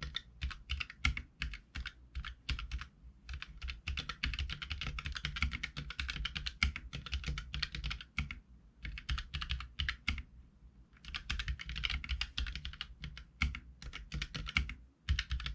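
Typing on a Keychron K3 mechanical keyboard with low-profile Gateron Red linear switches: fast runs of key presses broken by short pauses. The keys sound clicky and loud despite the linear switches.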